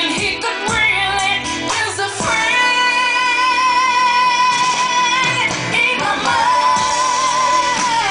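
A song with a female lead voice, which holds one long note with vibrato from about two seconds in and another held note near the end.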